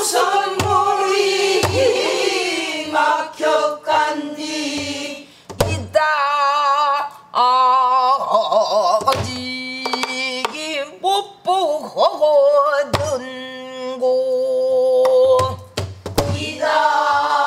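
A woman sings pansori in long held notes with a wide, wavering vibrato, keeping time on a buk barrel drum with a stick. A low drum stroke lands every few seconds.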